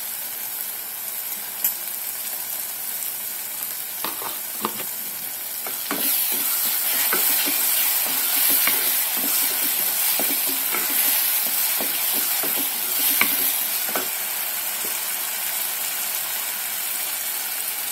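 Thick tomato masala paste sizzling in oil in a non-stick kadai, stirred and scraped with a wooden spoon. The stirring picks up about six seconds in, with a run of quick scrapes and a louder sizzle.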